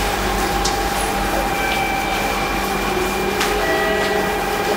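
Electric train standing at a station platform, its onboard equipment running with a steady hum and a few steady higher tones, against platform noise with a few faint clicks.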